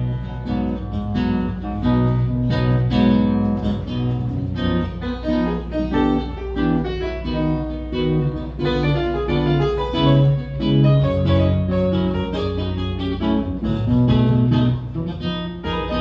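Acoustic guitar and grand piano playing together, an instrumental introduction with plucked guitar notes over held piano bass notes, before any singing.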